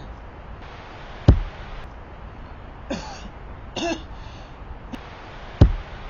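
A person coughing and clearing their throat in short bursts, with two sharp thumps about a second in and near the end, which are the loudest sounds.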